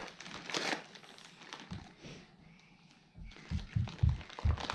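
Gift paper crinkling as a present is handled, then a quick run of low thumps near the end.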